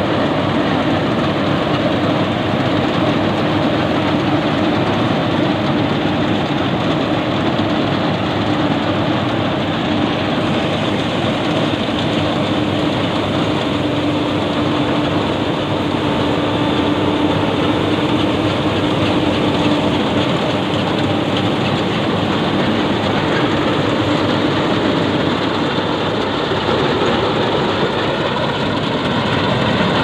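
Yanmar YH850 combine harvester running steadily while cutting and threshing rice: the even mechanical din of its diesel engine and harvesting machinery, with a faint steady hum underneath.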